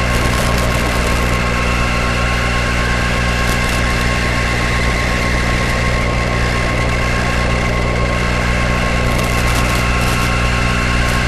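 A steady buzzing hum with a hiss over it, holding one unchanging pitch.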